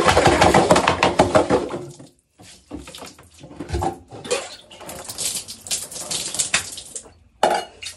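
Water splashing hard in a stainless-steel cooking pot for about two seconds, then quieter splashes, clanks of the pot and water spilling as the pot is lifted and its water poured out.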